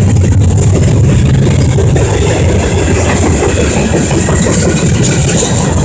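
Freight train passing at speed: a loud, steady rumble of wheels on the rails.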